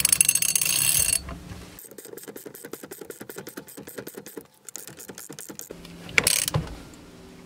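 Ratchet wrench tightening the steering wheel nut onto a Ford Bronco steering column shaft: a rasp at the start, then a quick, even run of pawl clicks for about four seconds, and a single knock near the end.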